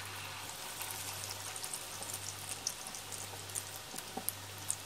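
Zucchini fritters frying in hot oil in a pot: a steady sizzle with many small crackles and pops scattered through it.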